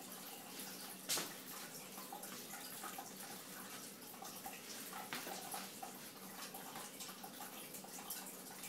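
Faint steady hiss of room tone, with a single sharp knock about a second in and a fainter one around five seconds.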